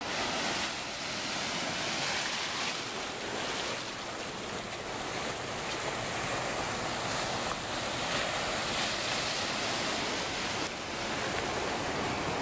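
Ocean waves breaking and washing over a rocky shore: a steady rush that swells and eases, with some wind.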